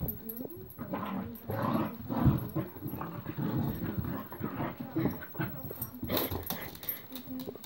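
Two dogs play-fighting over a toy, vocalising in short irregular bursts as they wrestle against each other.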